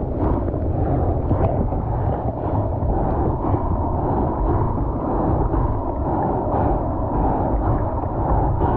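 Seawater rushing and sloshing across the deck of a stand-up paddleboard in the surf, a steady, muffled wash with a low rumble under it.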